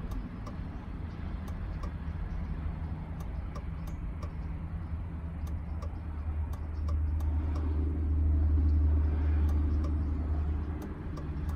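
Turn-signal flasher ticking steadily inside a 2003 Chevrolet Suburban over the low hum of the idling engine, which swells louder for a few seconds past the middle. The flasher module is intermittent and prone to skipping flashes, but here it keeps time.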